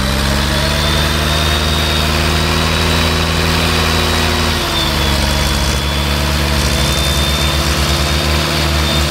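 Massey Ferguson 265 tractor's three-cylinder diesel engine running steadily, its speed dropping a little about halfway through and then holding, with a faint high whine over it.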